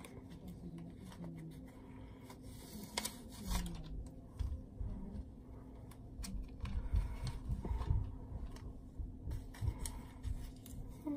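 Hands rustling through hair and handling foam flexi rods as they are unwound: soft rubbing and scratching with small clicks, and a run of low thumps from handling in the second half.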